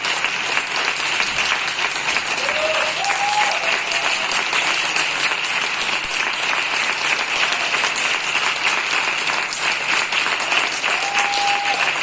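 Audience applauding steadily, a dense even patter of many hands clapping in a theatre hall.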